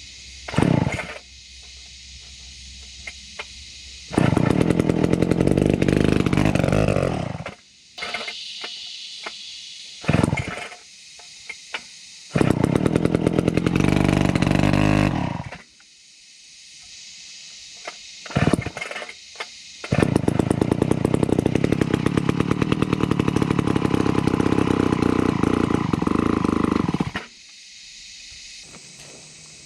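McCulloch 250 two-stroke chainsaw being pull-started: it fires briefly a few times and runs in three spells, the first two dying away as the revs fall, the last running steadily for about seven seconds before cutting off suddenly.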